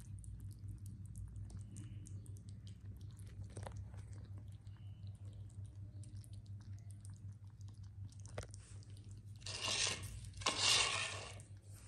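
Two kittens lapping a creamy treat from a plate: a dense run of quick, small wet clicks over a steady low hum. Near the end come two louder scraping sounds as a hand handles the plate.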